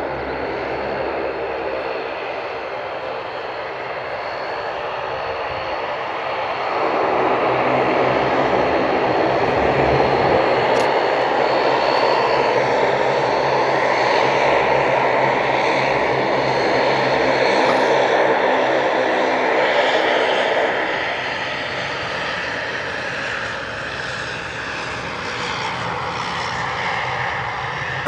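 Fixed-wing aircraft engines running with a steady hum of engine tones. The sound grows louder about seven seconds in, stays loud for about fourteen seconds, then eases off.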